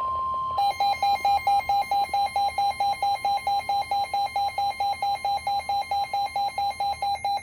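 The end of a steady NOAA Weather Radio warning alarm tone, then from about half a second in a rapid electronic alarm beeping, about four beeps a second, announcing a severe thunderstorm warning.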